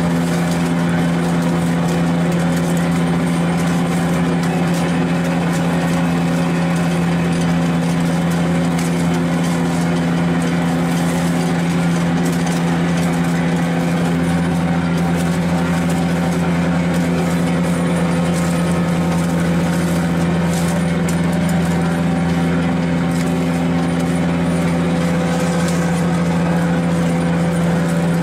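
Scallop dredging boat's engine running steadily: an unbroken drone with a strong hum that holds one pitch throughout.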